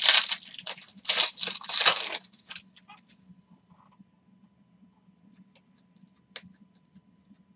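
Foil wrapper of a Panini Prizm football card pack torn open, a loud crinkling rip over the first two seconds. Then a few faint clicks as the cards are handled.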